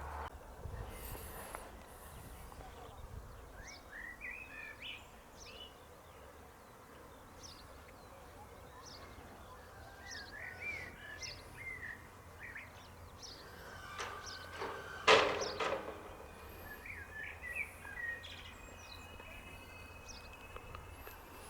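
Small birds singing and chirping, with many short warbling notes, over a low background hiss. A single brief loud sound about fifteen seconds in.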